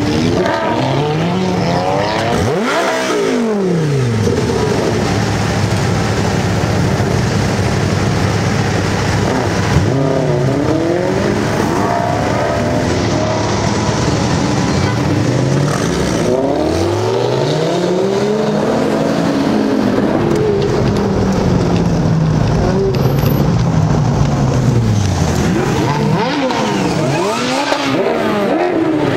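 Lamborghini Gallardo Spyder's V10 engine revving in repeated rises and falls of pitch: short blips near the start and about ten seconds in, a long slow rev in the middle, and more blips near the end.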